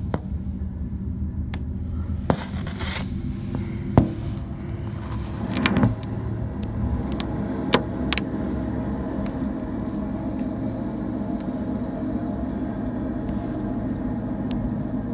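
BNSF intermodal freight train passing: a steady low rumble of diesel locomotives and rolling cars, with a hum that holds a steady pitch. Several short sharp knocks come in the first half, the loudest about four seconds in.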